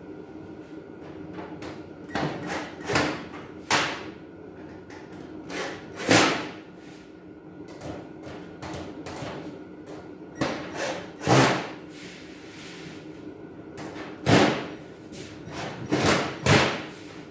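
Metal cabinet panels being knocked and pushed into their slots during assembly, about a dozen sharp knocks and clanks in irregular clusters.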